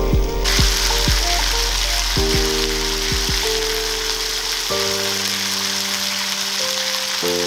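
Background music of held chords with soft low beats in its first half, over a steady hiss that comes in sharply about half a second in.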